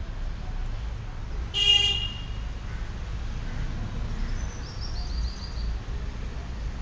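Steady low rumble of road traffic, with one short vehicle horn toot about one and a half seconds in. Faint high chirps come near the middle.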